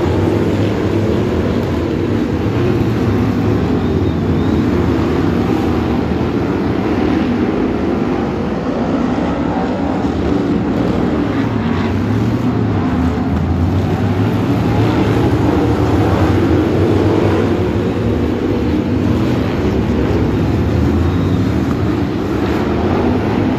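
A pack of BriSCA F1 stock cars racing around a shale oval, their big V8 engines running together in a loud, continuous din, with faint rises in pitch as engines rev.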